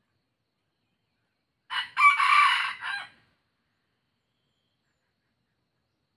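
Junglefowl-cross rooster crowing once: a short crow of about a second and a half, a brief opening note followed by the loud main phrase.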